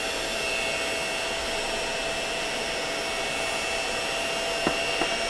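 Electric hand mixer running at a steady speed, its beaters whisking eggs as flour is added. A steady motor whine, with two light clicks near the end.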